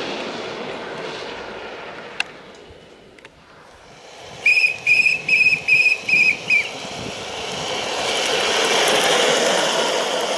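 Gravity kart rolling downhill with no engine: the noise of its tyres on asphalt fades and then grows again as it passes. About halfway through, a quick run of about seven short, shrill whistle-like notes is louder than the kart.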